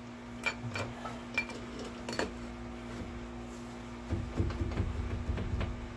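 Steel cylinder sleeve with its loaded piston clinking against the Detroit 6-71 block as it is lined up over the bore: a few sharp metallic clinks, two of them ringing briefly. About four seconds in comes a rough, scraping rumble with small knocks, as the sleeve slides down into the bore.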